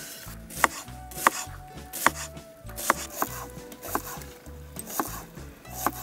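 Kitchen knife cutting onion on a wooden cutting board: about eight sharp knocks of the blade against the board, spaced unevenly.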